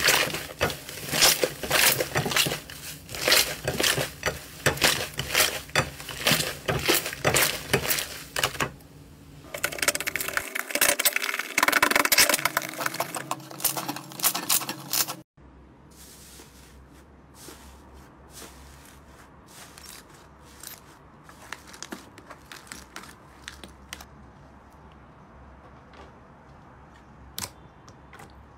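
Hands kneading and squeezing slime, making loud wet crackling, popping and clicking sounds in quick succession. About fifteen seconds in the sound drops to a much quieter stretch with only scattered small pops as fingers press into the slime.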